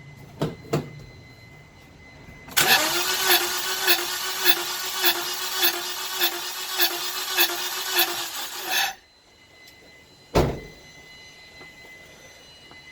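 2009 Toyota Corolla engine being cranked by its starter without firing, a steady whine with an even pulse a little under twice a second, for about six seconds before it cuts off. Two light clicks come before it and a single thump comes after it.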